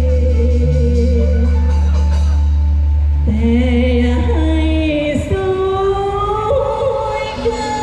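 Loud live band music played through a rot hae sound truck's stacked speaker cabinets (SR18 bass cabinets, TD-112 midrange cabinets): a heavy held bass note that drops out about five seconds in, guitar, and a singer holding long notes with vibrato.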